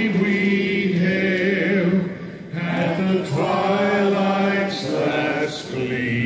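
A group of voices singing slowly together in unison, holding long notes of about two seconds each, with brief breaks between phrases.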